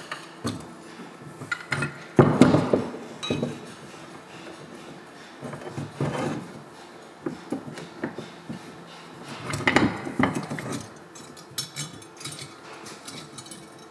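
Metal alternator parts and hand tools clinking and knocking together during hand work on the alternator, in irregular bursts of sharp clinks, the loudest about two seconds in and again around ten seconds.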